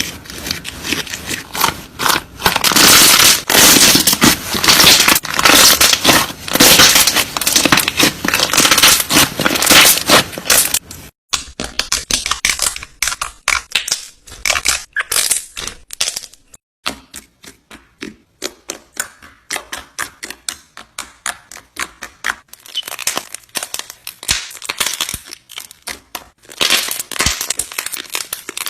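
Slime being squeezed and pressed by hand, giving a dense run of crackling and popping. About eleven seconds in it cuts to softer, quicker separate clicks and pops, which grow louder again near the end.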